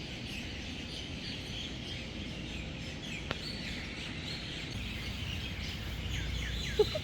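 Many birds chirping and twittering together in an early-morning dawn chorus over a steady low background hum, with a single click about three seconds in.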